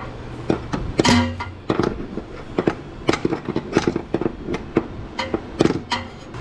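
A hammer tapping on a GM seal-puller tool threaded into a Turbo 350 transmission's shift shaft seal. The strikes are irregular, metal on metal, about three a second, some of them ringing. The taps drive the tool in to seat it so it bites into the old seal.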